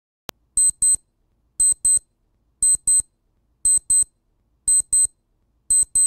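Digital audio playback of a WAV file through PulseAudio: a short click just after the start, which is the file header being played as sound, then pairs of short high-pitched electronic beeps repeating about once a second.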